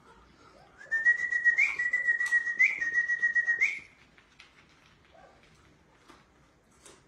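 A person whistling one long, steady, high note for about three seconds, with three brief upward flicks: the whistle used to call a rescued dog to her food.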